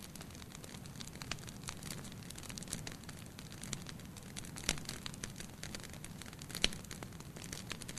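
Wood fire burning in a fireplace: a soft steady hiss with scattered crackles and a few sharper pops, the loudest about halfway through and again near the end.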